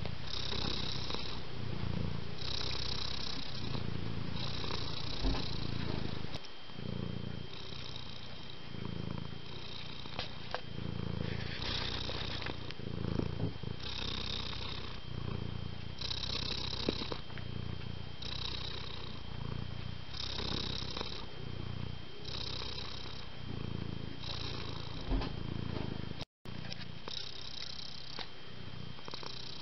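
Domestic cat purring continuously, the rumble swelling and fading with each breath in a steady rhythm.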